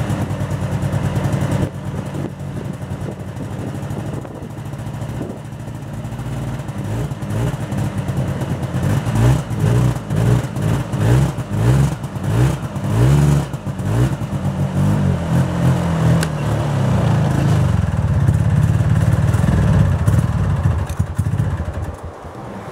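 Yamaha Bravo Trapper snowmobile's single-cylinder two-stroke engine running cold on choke. It surges unevenly in repeated revs through the middle, runs steadier and louder after that, and drops off near the end.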